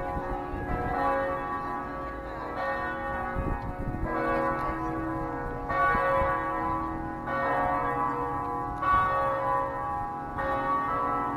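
Church bells ringing, a new strike about every second and a half, each note ringing on into the next.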